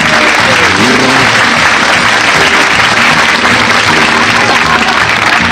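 Studio audience applauding steadily, with a piano playing quietly underneath.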